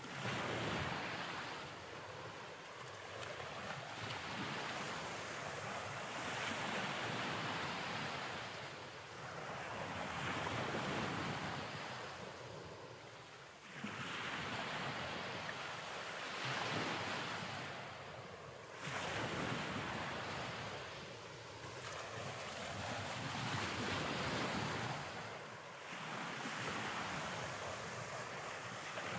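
Rushing surf-like noise, swelling and falling away every three to five seconds.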